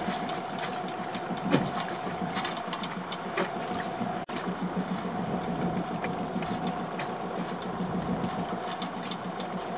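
A small boat's engine idling steadily, with light clicks and knocks over it.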